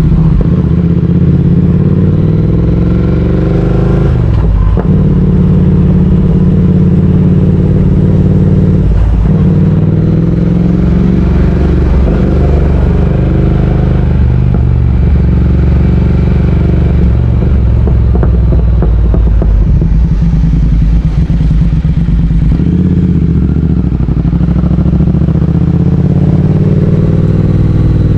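Triumph Speed Twin 1200's parallel-twin engine running under way, heard from the rider's seat, its pitch rising and falling with the throttle and dipping briefly twice in the first ten seconds.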